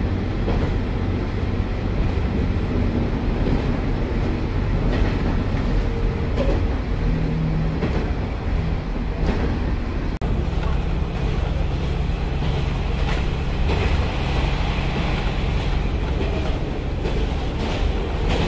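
Cabin noise of a KiHa 47 diesel railcar: a steady diesel engine drone over rumbling running noise, with a few scattered clacks and a brief break about ten seconds in.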